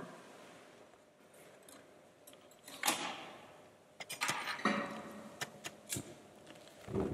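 Handling noises: fabric rustling and scattered clicks and knocks, as a fire bowl in a metal stand is being lit.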